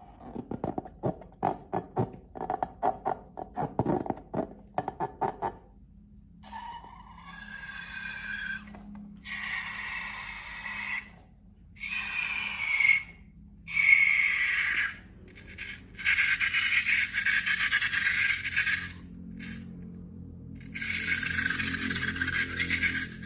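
Slime being squeezed, making a quick run of wet squishing clicks, then several hissing squeals one to three seconds long with a wavering pitch: air forced out through a stretched balloon neck.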